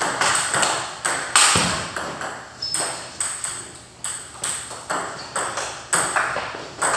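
Table tennis balls clicking off paddles and tables during rallies on two tables, an irregular run of sharp ticks a few times a second, each ringing briefly in a hard-walled hall.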